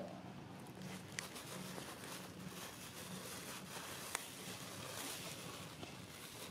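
Faint background noise with a steady low hum, and two sharp clicks, about a second in and about four seconds in.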